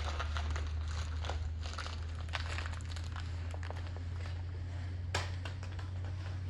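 Crinkling and scattered light clicks over a steady low hum, with one sharper click about five seconds in.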